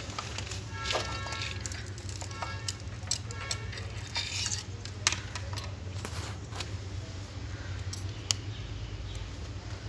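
Metal parts of an automatic transmission's valve body clinking and clicking as they are handled and fitted by hand, several sharp clicks with brief metallic ringing, over a steady low hum.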